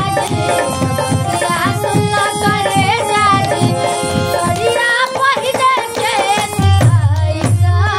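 A woman singing a Bhojpuri song with a wavering, ornamented melody, over hand-drum accompaniment and steady held instrument notes. The drum strokes grow heavier near the end.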